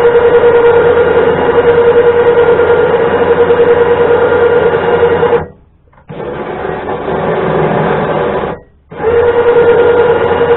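Electric winch motor running steadily with a strong hum, spooling the cable. It cuts off briefly twice, about five and a half seconds in and again near nine seconds, and runs a little quieter between the two stops.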